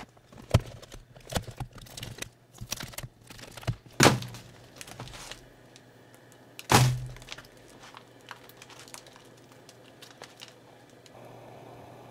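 Old dark beeswax comb and wax foundation being pushed and broken out of a wooden hive frame with a long hand tool: a run of cracks, crunches and knocks, with two heavy thunks about four and seven seconds in, then only scattered ticks.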